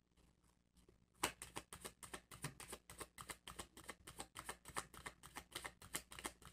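A deck of tarot cards shuffled in the hands: a fast, even run of faint card clicks, about five or six a second, starting about a second in.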